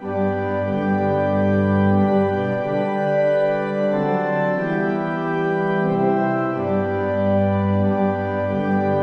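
Background music played on an organ: slow, sustained chords that change every few seconds.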